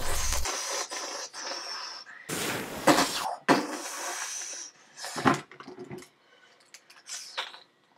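Mouth-made sound effects for a crash and blaster fire: a string of breathy, hissing bursts, the two longest near the middle and shorter ones after.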